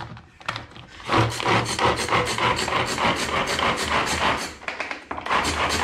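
Hand-powered pull-cord mini chopper mincing chopped onion: quick repeated pulls of the cord spin the blades in a rapid rasping run of strokes, with a brief pause about five seconds in.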